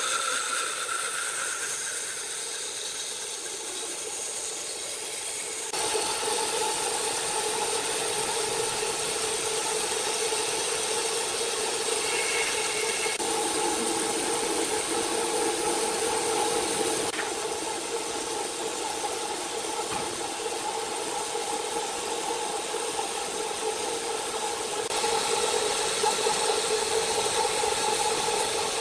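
Sawmill machinery running steadily, a continuous mechanical hum with a hiss over it. The sound changes abruptly several times.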